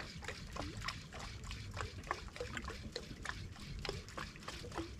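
Water lapping and splashing against the hull of a small fishing boat at sea: many small irregular splashes over a steady low rumble.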